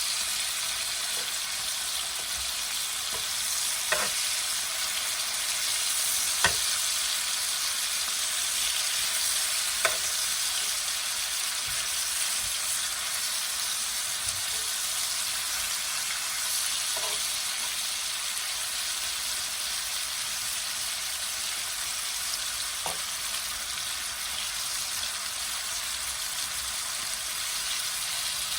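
Food sizzling steadily as it fries in a pan, with a few sharp clicks scattered through.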